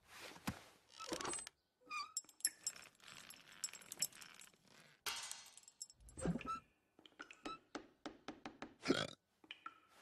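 Cartoon panda eating with his mouth full: crunching, chewing and gulping, with scattered crackly clicks and a couple of low, muffled grunts.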